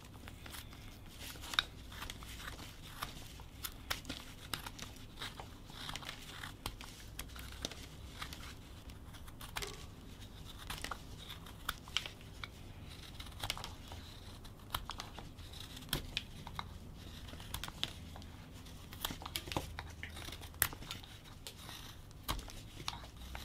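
Whittling knife slicing shavings off a wooden block: a run of short, irregular cutting strokes as the sides are tapered from base to top, with a few sharper cuts standing out.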